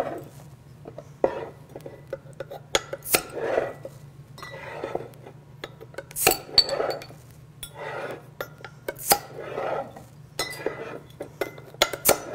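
Chef's knife levering the cap off a glass beer bottle, followed by scattered sharp clinks and knocks of metal against glass, with soft handling noise between them.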